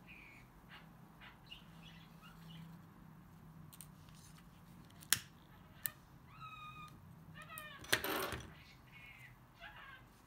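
Several short, high-pitched animal calls in the second half, some held level and some bending in pitch. Before them come two sharp clicks, and a loud brief rustling burst comes about eight seconds in.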